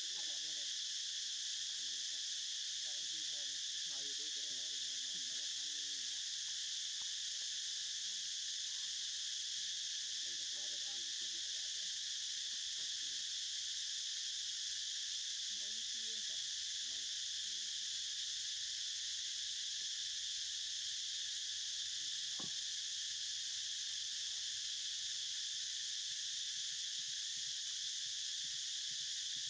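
Steady outdoor insect chorus, a constant high buzz that does not let up.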